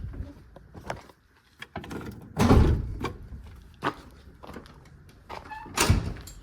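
Two heavy thunks, about three and a half seconds apart, with lighter knocks and clicks between them.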